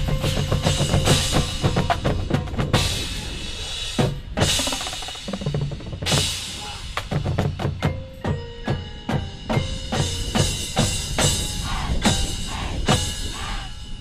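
Marching band percussion section playing a drum-heavy passage: snare and bass drums strike in quick, irregular hits, with a drum roll, over a few sustained pitched tones.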